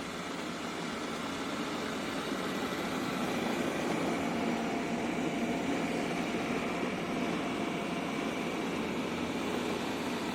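Roborock S8 Pro Ultra robot vacuum running, a steady motor-and-airflow hum with a faint high whine. It grows a little louder in the middle.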